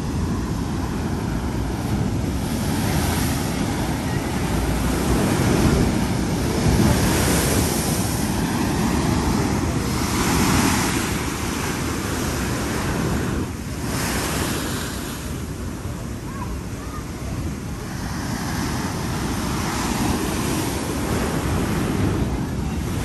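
Heavy storm surf breaking against a seawall and pier: a continuous rushing of churning water, swelling with each breaking wave every few seconds.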